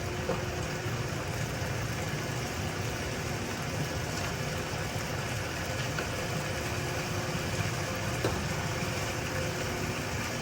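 Chicken thighs frying in a pan: a steady sizzle over a low hum, with a couple of faint ticks.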